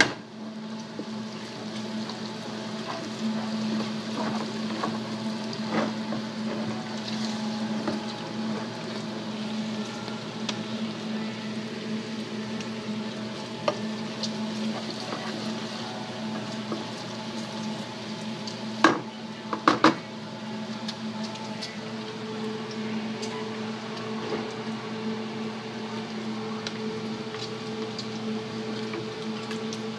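Chopped bacon sizzling and spattering in a frying pan while it is stirred with a wooden spatula, with small scraping clicks and three sharp knocks against the pan about two-thirds of the way through. A steady low hum runs underneath.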